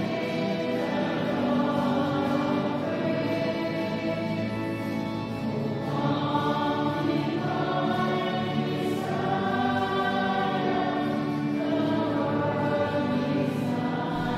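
Background music of slow, long-held chords that change every second or two.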